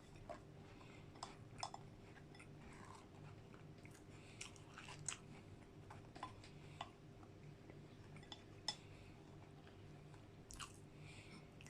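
Faint close-up eating sounds: scattered small wet mouth clicks of chewing soft, melted McFlurry, over a low steady hum.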